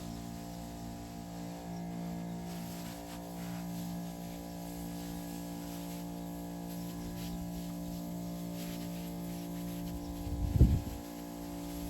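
A steady droning hum with many even overtones, like a small motor running, and a brief loud low rumble about ten and a half seconds in.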